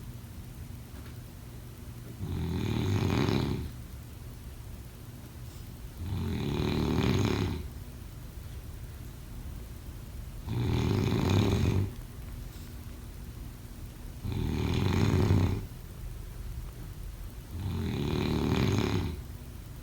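Snoring in a slow, steady rhythm: five long snores, each about a second and a half, one roughly every four seconds, with quieter gaps between them.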